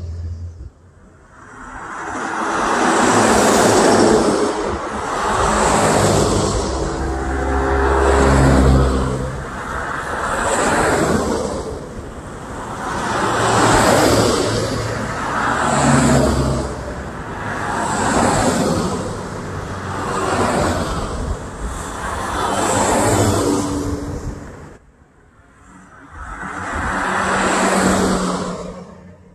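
A line of cars and pickup trucks passing close by on a two-lane road, one after another about every two seconds, each a swell of tyre and engine noise. There is a short lull near the end before one more vehicle passes.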